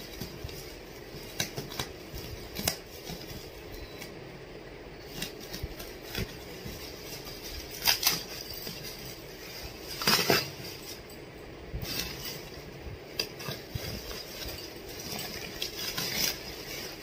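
Bubble-wrap and plastic packaging rustling and crackling as a parcel's tape is cut and the wrapping is pulled open. There are irregular sharp crackles and clicks, loudest about eight and ten seconds in.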